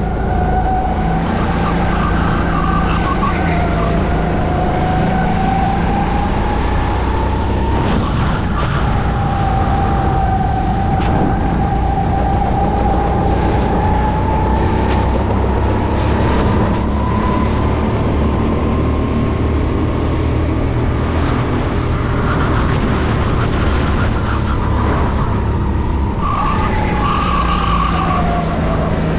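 Sodikart endurance kart's engine at racing speed, heard onboard: its pitch climbs as it accelerates down the straights, dips briefly twice, and drops near the end as it slows for a corner.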